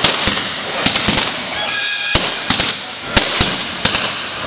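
Gunshots from a staged Wild West gunfight: guns firing blanks, about a dozen sharp cracks in uneven clusters, each with a short echoing tail.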